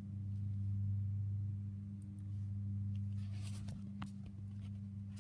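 A tabby cat purring right against the microphone: a steady low hum that swells and fades with its breaths. A few faint clicks of fur brushing the microphone come late on.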